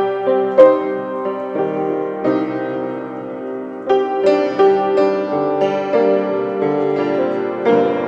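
Solo grand piano playing a hymn melody over sustained chords, each note struck cleanly and left ringing.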